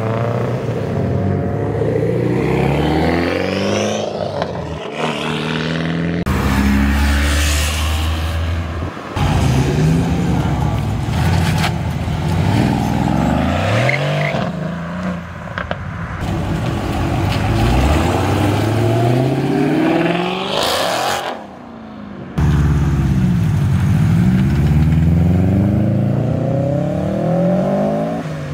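Several performance cars accelerating hard away one after another, among them an Acura Integra and a Mercedes-AMG C-Class coupe. Each engine revs up, drops at the gear changes and climbs again, and the sound breaks off abruptly several times between cars.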